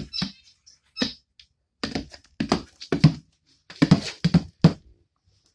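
A person voicing horse noises in about seven short bursts, close to the microphone, while playing a plastic toy horse through bucks and runs.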